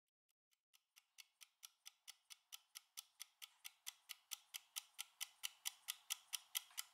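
Quick, even clock-style ticking, about four to five ticks a second, fading in and growing steadily louder as a countdown timer runs through its last seconds.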